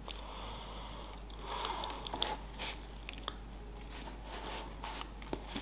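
A person chewing soft cake close to the microphone, with small wet mouth clicks and a few light clicks from a fork.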